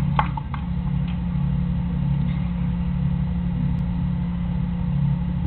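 Steady low mechanical hum, like an engine running, with a few sharp clicks in the first half second.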